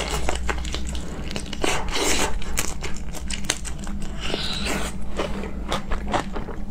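Close-miked eating sounds of biting into a large whole prawn and chewing through its shell: a quick, irregular string of crunching and crackling clicks.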